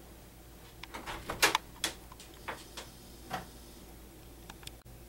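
A few scattered light clicks and knocks over quiet room tone, the loudest cluster about a second and a half in.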